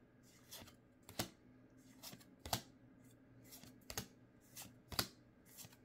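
Pokémon trading cards being flipped through one at a time from a freshly opened booster pack, each card sliding off the stack with a soft, short swish, about one or two a second.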